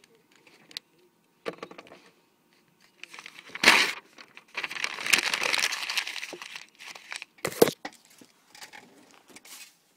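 Camera handling noise: a hand brushing and rustling against the paper and the camera as it is picked up and moved, with a sharp knock about three quarters through.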